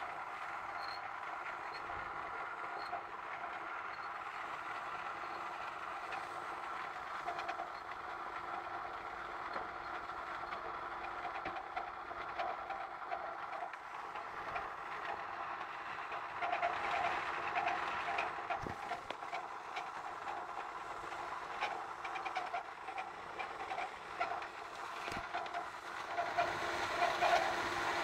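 Otsein Hoover OHNV175 tumble dryer running with its faulty, abnormal noise: a steady mechanical whine with a repeating squeal. It grows louder about sixteen seconds in and again near the end.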